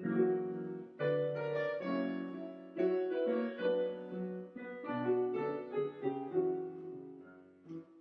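Background piano music: slow chords and notes, each struck and left to ring, fading out near the end.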